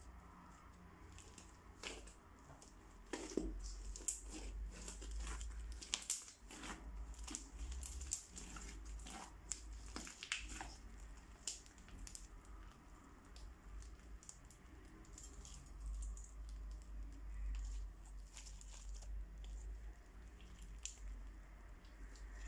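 Hands squishing, pressing and stretching fluffy crunchy slime, giving soft squelches with a stream of small crackles and pops from the crunchy bits mixed in. The crackling is densest in the first half and thins out later.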